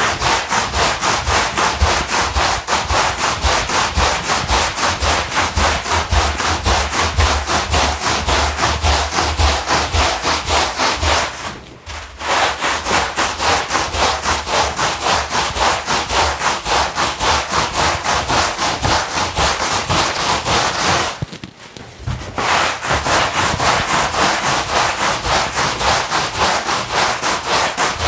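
Long-handled bristle push brush scrubbing a wet, soapy rug in quick, steady back-and-forth strokes, with two brief pauses about twelve and twenty-one seconds in.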